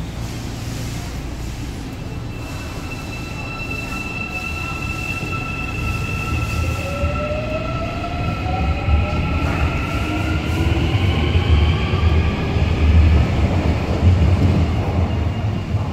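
A Busan Metro 1000-series electric train's VVVF-IGBT inverter drive whining as the train accelerates out of the station: a steady high whine, then several tones gliding upward in pitch as it picks up speed. Under it is a low rumble of wheels that grows louder toward the end.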